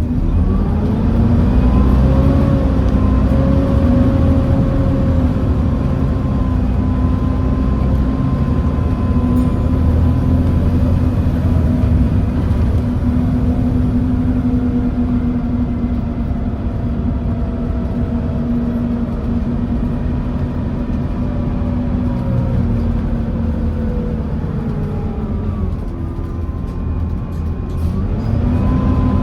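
Volvo B7TL bus heard from on board: its Volvo D7C diesel engine running with a loud, steady whine from the cooling fans. The whine rises in pitch over the first couple of seconds, holds, dips about 26 seconds in and climbs again near the end, over a low engine rumble.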